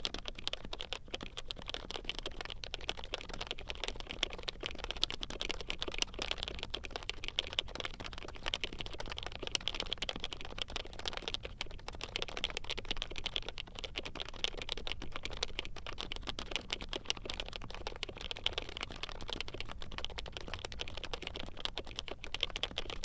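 Continuous fast typing on a Norbauer Heavy Grail keyboard with lubed HHKB Pro 3 Topre switches: a steady stream of deep "thocky" keystrokes.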